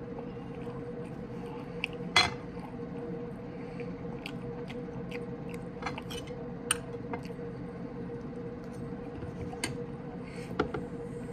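Fork and knife clicking and scraping on a ceramic dinner plate while eating: scattered light clinks, with a sharper clink about two seconds in, over a steady low hum.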